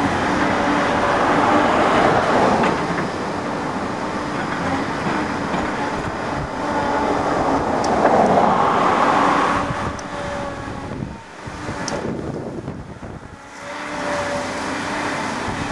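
Engines of heavy diesel machinery working on a railway relaying site: a steady hum under a rushing noise that swells twice, then dips briefly near the end.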